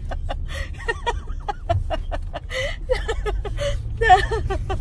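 People talking and chuckling in short bursts over a steady low rumble.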